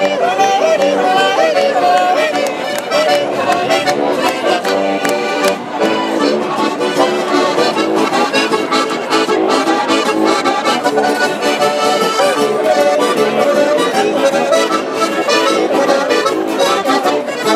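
Two diatonic button accordions playing a traditional folk tune together, without a break.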